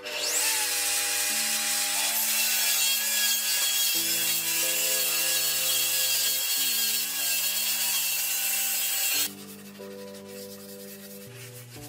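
Table saw ripping a long strip of wood: a loud, steady cutting noise that stops suddenly about nine seconds in. Background music with slow chord changes plays throughout.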